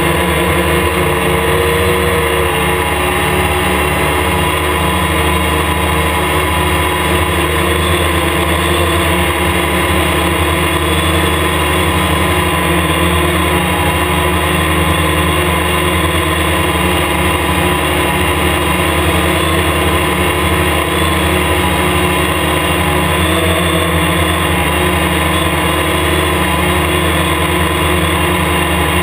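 Hexacopter's six electric motors and propellers running in flight: a loud, steady hum of several tones at once, picked up by a camera mounted rigidly on the multirotor's frame.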